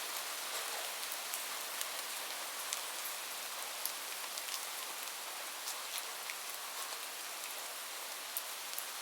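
Steady rain, an even hiss with individual drops ticking at irregular intervals.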